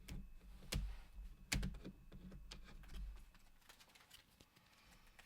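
Tarot cards being handled: three sharp clicks with soft knocks in the first two seconds, then quieter rustling and light taps.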